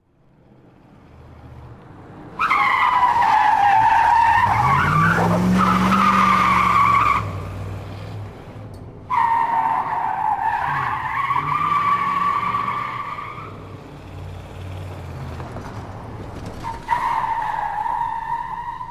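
Car engine running with three long tyre squeals as the car skids, each a high screech lasting several seconds. The engine revs up during the first squeal.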